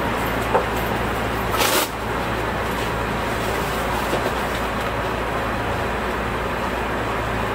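Steady low hum and rumble inside the driver's cab of a Tokyo Metro 16000 series subway train as it moves slowly along an underground station platform. A short sharp hiss comes at about two seconds in.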